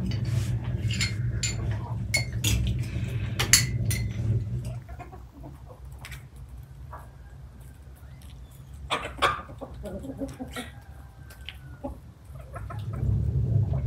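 Chickens clucking, amid scattered sharp clicks and knocks. A low steady rumble fades out about five seconds in.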